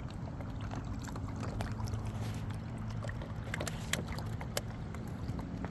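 Boat motor running steadily on the water, a low even hum with scattered light clicks and knocks over it.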